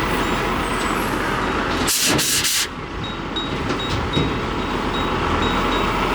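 Oxy-fuel cutting torch running with a steady roar, heating seized nuts that an impact gun could not free, with three quick hissing blasts about two seconds in.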